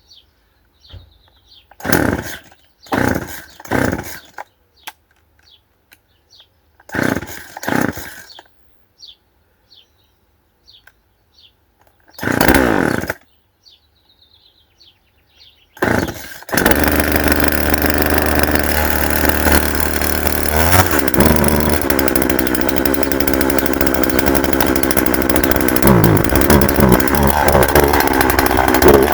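Two-stroke chainsaw being started on fresh fuel after a cutting-out fault: several short bursts as it is pulled over and briefly fires, then about 16 seconds in it catches and keeps running, the engine pitch dipping and rising a couple of times.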